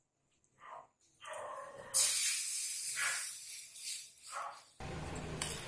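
Hot ghee in a miniature kadai on a mini gas stove sizzling loudly as an ingredient is dropped in, bursting in about two seconds in and slowly dying down. Near the end a lower, steady noise starts abruptly.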